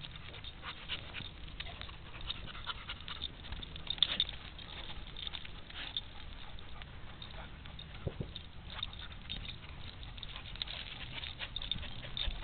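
A dog nosing and pawing at the dry dirt of an animal's burrow and moving about it: irregular short scratching and pattering sounds, sharpest about four seconds in.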